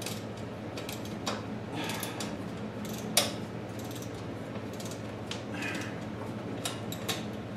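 Scattered clicks and small metallic knocks of hand tools and hardware being handled, irregular rather than a steady ratchet rhythm, the sharpest one about three seconds in, over a steady low hum.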